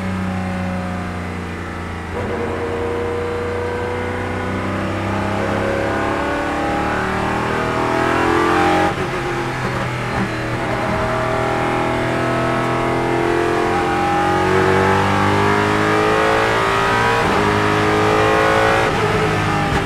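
Ford GT GT1 race car's Roush Yates 5.3-litre V8, heard from inside the cockpit, accelerating hard with its pitch climbing and breaking at each gear change. About nine seconds in the revs drop sharply as it slows and shifts down, then it climbs through the gears again.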